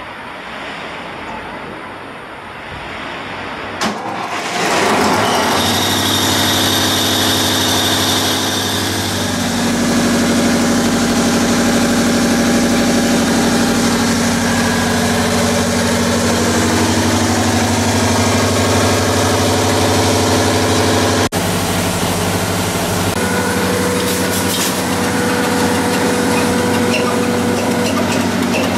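Wind and water noise at the quayside, then about four seconds in the trawler's large marine diesel engine starts up and settles into steady running.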